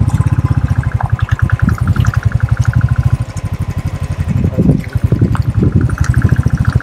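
Royal Enfield Thunderbird 350's single-cylinder engine running at low revs while the motorcycle rides slowly over a dirt track, giving a steady, rapid thump.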